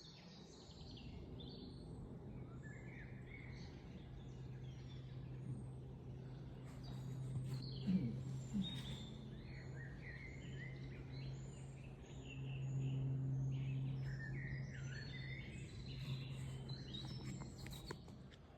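Birds chirping, many short overlapping calls throughout, over a steady low hum that swells for a couple of seconds past the middle. Two brief low thumps come about eight seconds in.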